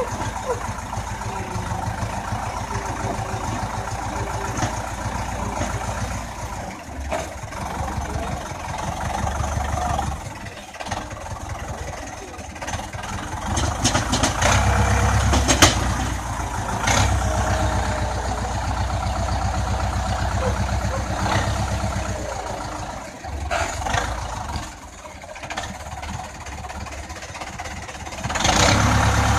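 Zetor 7245 tractor's four-cylinder diesel engine running, revving up and settling back in long stretches as it powers the front loader lifting and dumping manure. A few sharp knocks are heard over the engine.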